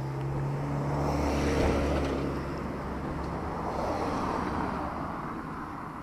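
A motor vehicle drives past on the street: engine hum and tyre noise grow to a peak about two seconds in, then fade away.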